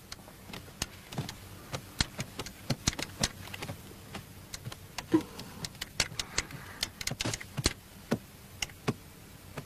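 Footsteps on a hard floor: sharp, irregular clicking steps of people walking, several a second.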